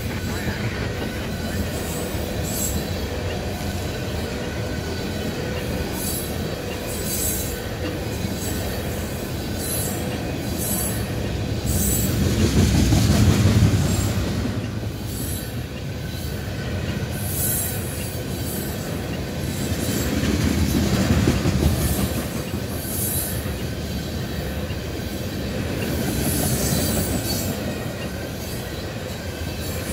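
Freight train tank cars rolling past close by: a steady rumble of steel wheels on the rails with some high-pitched wheel noise. It swells louder about halfway through and again about two-thirds of the way in.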